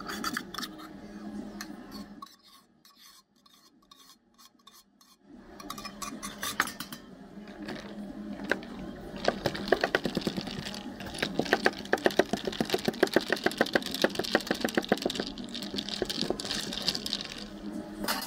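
Utensils and dishes clinking and clattering, with a long run of fast, rhythmic clinks in the second half.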